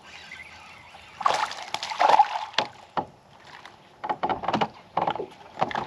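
A hooked bass being landed at the side of a bass boat: water splashing and thrashing, then a series of separate sharp knocks against the boat. It is loudest about a second in.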